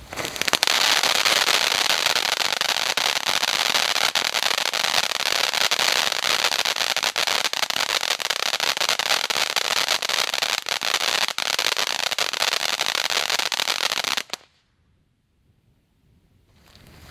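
Ground fountain firework burning: a loud steady hiss of spraying sparks, thick with fast crackling. It starts about half a second in and cuts off suddenly about fourteen seconds in.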